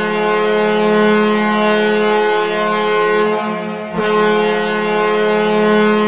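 Arizona Coyotes' arena goal horn sounding one long, steady, low blast. It fades slightly about three and a half seconds in, then sounds again at full strength at four seconds.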